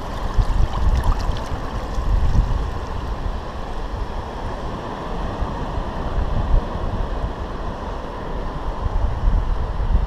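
Wind buffeting the microphone in uneven gusts, over the steady wash of ocean surf running through shallow water.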